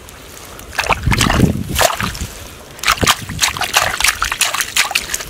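Hands digging in a waterlogged mud hole: wet squelching and splashing in two bursts of quick strokes, about a second in and again from about three seconds in.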